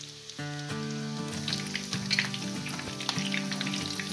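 Potato patties shallow-frying in a pan of hot oil, the oil sizzling and crackling steadily, over background music.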